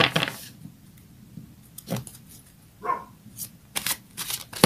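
Oracle cards being handled and shuffled: a few sharp paper snaps and flicks, with a quick run of them near the end.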